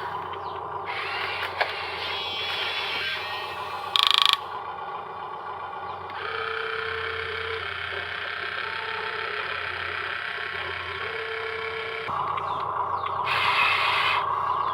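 Small electric motors and gearboxes of radio-controlled construction models whirring and grinding steadily, with one sharp, loud burst about four seconds in and a few brief steady tones later on.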